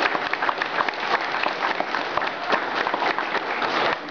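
A small group of people applauding with dense, irregular hand clapping that thins out near the end.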